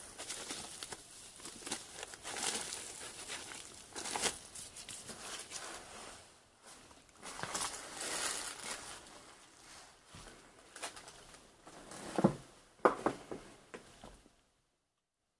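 Rustling and crinkling of old paper and debris being handled and walked over, in uneven scrapes, with a few sharp knocks near the end before the sound cuts off suddenly.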